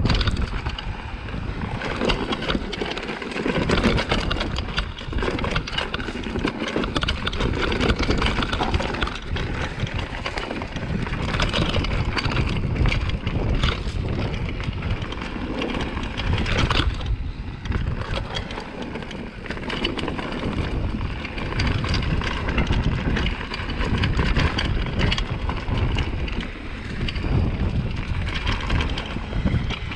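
Downhill mountain bike riding over rocks and dirt, heard from a bike-mounted camera: steady tyre rumble with a constant clatter of knocks and rattles from the bike, and wind buffeting the microphone.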